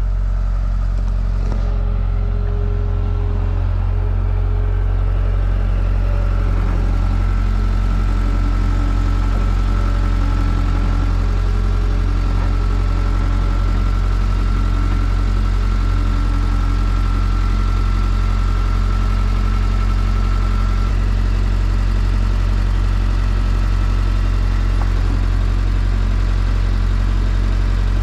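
Vehicle engine running steadily at an even speed, a low constant drone, with a thin high whine above it through the middle part.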